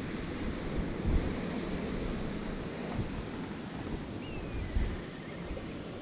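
Wind gusting on the microphone over a steady wash of sea surf, with a faint short high falling note about four seconds in.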